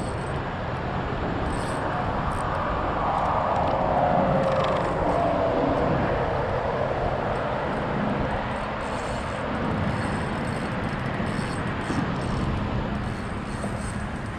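Road traffic on a highway bridge over the river: a vehicle passing swells to a peak about four seconds in and fades, over a steady rush of noise from the moving river current.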